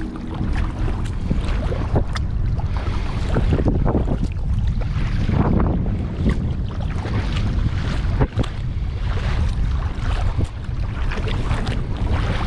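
Wind buffeting the microphone, a steady low rumble, while a kayak is paddled across open water. Short splashes of the paddle blades and water against the hull break through it.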